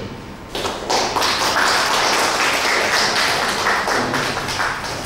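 Audience applauding: a dense, steady patter of hand claps that starts about half a second in and fades near the end.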